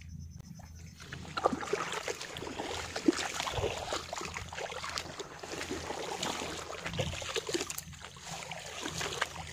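Shallow water sloshing and splashing, with many small irregular crackles, starting about a second in.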